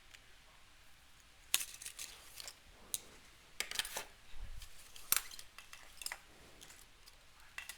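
Packaging being opened and the parts handled: a scattered series of sharp crinkles and clicks, the loudest about a second and a half in and about five seconds in.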